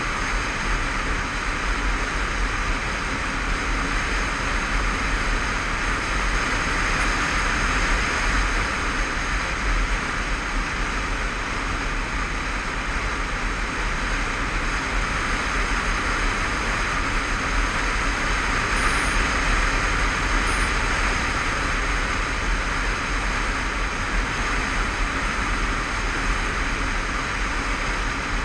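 Steady wind rush and road noise on the microphone of a camera mounted on a motorcycle riding along at speed, with the bike's engine running underneath.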